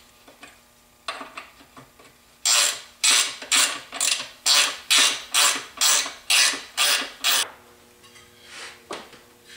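Ratchet wrench worked back and forth on a fitting of a Zundapp scooter engine case: a run of about eleven quick ratcheting strokes, roughly two a second, starting about two and a half seconds in, with a few fainter clicks before.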